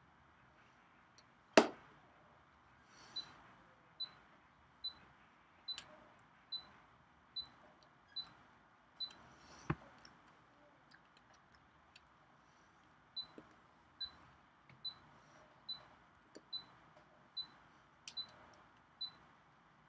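A short high chirp repeating evenly, a little more than once a second, stopping for a few seconds midway and then carrying on. A few sharp clicks fall among the chirps; the loudest is about one and a half seconds in.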